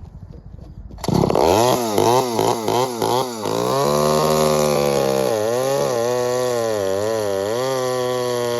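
Stihl 009L two-stroke chainsaw starting up about a second in and revved about six times in quick blips. It then runs at high speed with a steady pitch that dips slightly a few times.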